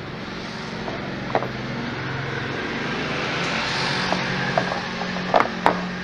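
Plastic parts of a wet/dry vacuum clicking and knocking as the float cage is handled and fitted over the motor housing, two sharp clicks close together near the end. Under it, a steady background noise with a low hum swells and fades around the middle.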